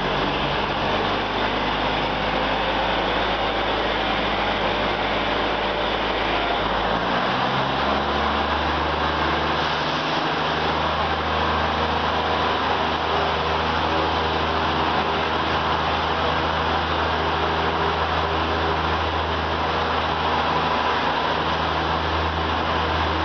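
Diesel train engine running as the train pulls slowly away, heard from on board. The engine note steps up about seven seconds in, then holds steady under a constant wash of running noise.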